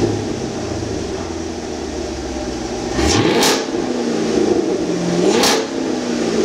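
Chevrolet Camaro SS's 6.2-litre V8 running through an aftermarket A JUN rear-muffler exhaust, revved twice about two and a half seconds apart: each rev sweeps sharply up and falls back, with a brief harsh rasp at the top, and the engine sinks back to a low idle between.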